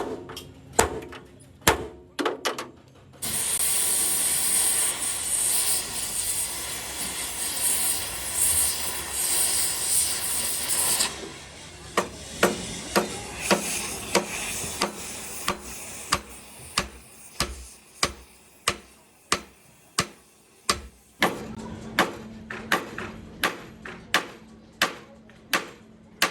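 Hammer blows on metal, then a loud, steady hiss lasting about eight seconds. After the hiss the hammering picks up again as a regular run of blows, a little under two a second.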